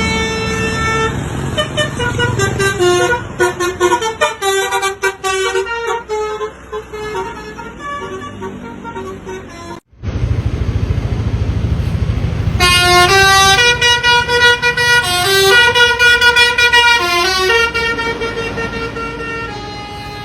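Indonesian bus 'telolet' musical air horn playing quick melodic runs of stepped notes over a low engine rumble. The sound breaks off suddenly about halfway through, then a second, louder string of horn tunes follows.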